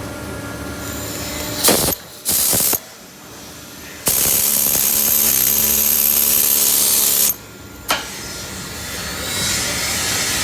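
Flux-cored arc welding: a short burst of arc hiss, then after a pause a steady, loud crackling hiss for about three seconds that starts and cuts off sharply. Steady workshop noise lies between and after the bursts.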